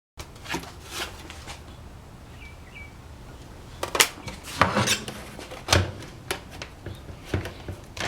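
Hard small objects being handled and set down by hand: light clicks, taps and rubbing, with a run of sharper knocks from about four seconds in.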